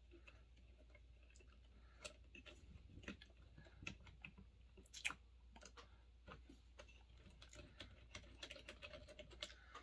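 Faint, scattered clicks and light taps of small parts being handled as the carburetor is worked off a Homelite XL Automatic chainsaw, with a few sharper knocks between about two and five seconds in.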